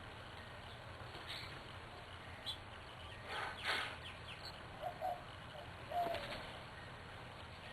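Birds calling: a few short, low notes, mostly in the second half, along with several brief rustling or tapping noises, over a steady low background hum.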